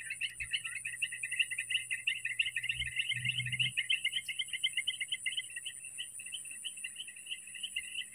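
Insects calling: a rapid, even chirping of about five or six pulses a second over a steady high-pitched drone.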